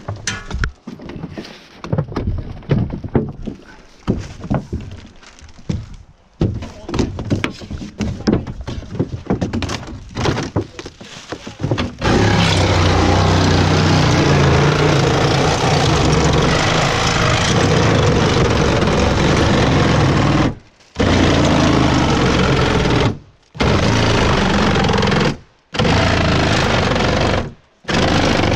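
Irregular knocks and clatter of debris being handled, then from about twelve seconds in a reciprocating saw (Sawzall) running and cutting steadily, stopping briefly four times near the end as the trigger is let off.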